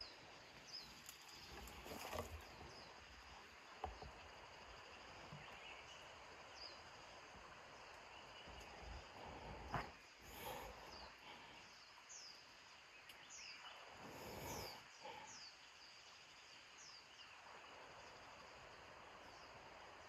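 Faint forest ambience: a small bird gives short, high, falling chirps, in a run of them through the second half, over a soft steady hiss, with a few soft knocks and rustles.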